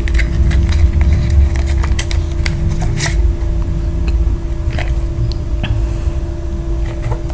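Hands handling a micro USB cable in its card and plastic packaging, with scattered rustles and light clicks over a steady background hum.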